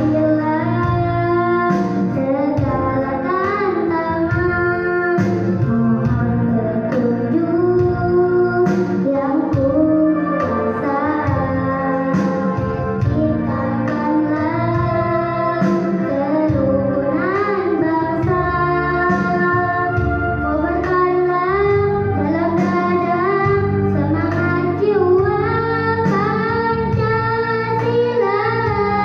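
A young girl singing a song into a microphone, with held and gliding notes over an instrumental accompaniment with guitar.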